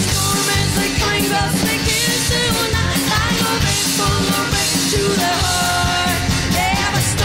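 A four-woman folk-rock band playing live: a woman's lead vocal with backing voices over strummed strings and a driving beat.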